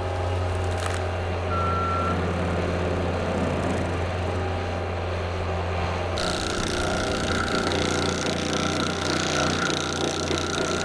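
Cat compact track loader's diesel engine running under load, with its front-mounted mulcher head shredding brush. There is a brief high beep about two seconds in. About six seconds in a high whine and hiss join the engine drone.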